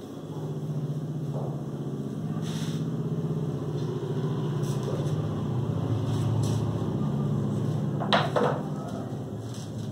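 A steady low motor hum that grows louder toward the middle and eases off near the end, with a couple of sharp knocks a little after eight seconds in.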